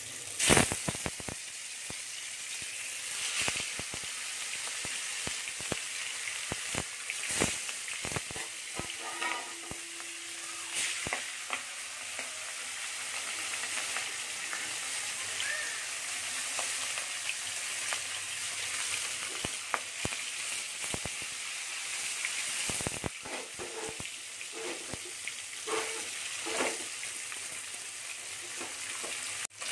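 Kali baush fish pieces, rubbed with turmeric and salt, sizzling in hot soybean oil in an aluminium karahi as they shallow-fry, with frequent spitting pops. Pieces are laid into the oil one after another, with a louder burst of sizzle about half a second in.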